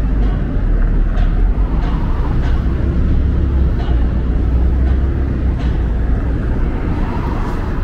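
City street traffic: vehicles running past with a heavy, steady low rumble and a constant wash of road noise, with faint sharp ticks every second or so.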